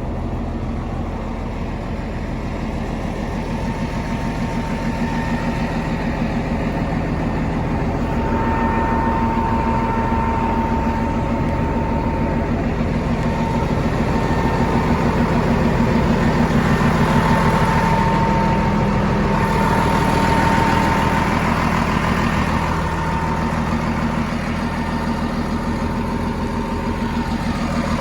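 Caterpillar D6R XL bulldozer's diesel engine running steadily. It gets louder a few seconds in and eases back near the end, with a thin whine coming and going over it.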